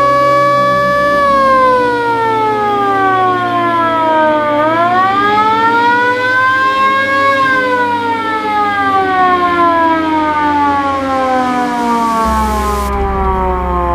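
Roof-mounted original siren of a VW Type 2 bay-window Kombi ambulance sounding a wail. Its pitch holds high, falls, rises again about halfway in and then slides slowly down.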